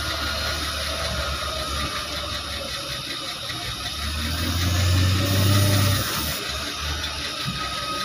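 Heavy diesel engine of a wheeled log loader running as the loader drives up. The engine grows louder about four seconds in and drops back about two seconds later.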